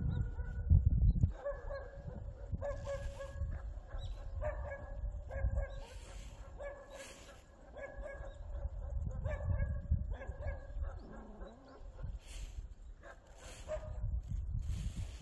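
A dog whining in repeated high, drawn-out notes, each about half a second to a second long, over a low irregular rumble.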